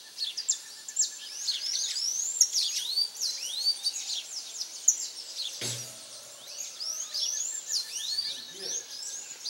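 Dawn chorus of many birds chirping at once, with dense, overlapping short rising and falling notes and a faint rapid trill beneath them. A single dull knock sounds a little past halfway.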